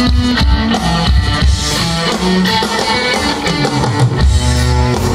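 A live rock band playing, with guitar over bass and a drum kit.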